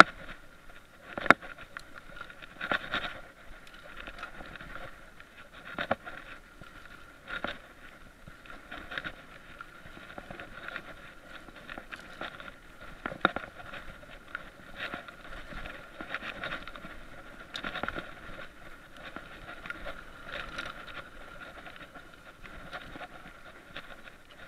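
Mountain bike rolling down a dirt trail: a continuous rattle and rolling noise broken by irregular knocks every second or two as the bike hits bumps, the sharpest near the start and about halfway through, over a steady faint whine.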